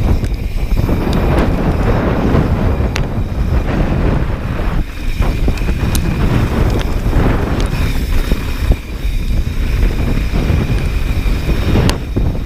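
Wind buffeting the camera microphone during a fast mountain-bike descent, over the rumble of the tyres rolling on a dirt and gravel trail, with a few sharp clicks and rattles.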